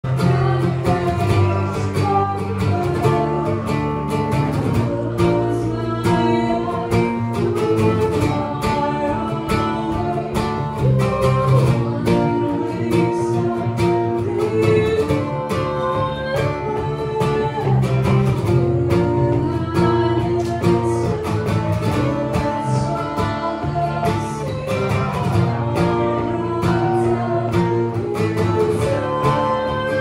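Live band performing a song: a singer over acoustic guitar and electric bass guitar.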